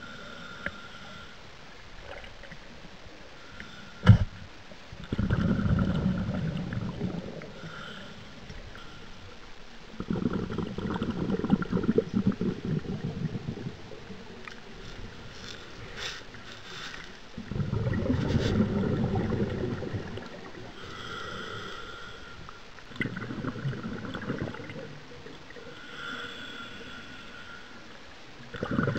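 Scuba diver breathing through a regulator underwater: exhaled bubbles rumble out in bursts of two to three seconds about every six seconds, with a fainter hiss of inhaling between them. A single sharp knock sounds about four seconds in.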